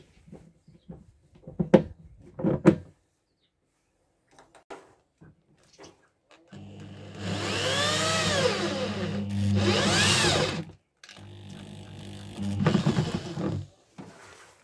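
A couple of sharp knocks of handling, then an electric drill with a step drill bit boring through the wall of a plastic jerrycan, in two runs of several seconds, starting about halfway in and again near the end. The motor whine rises and falls in pitch as the trigger is squeezed and eased.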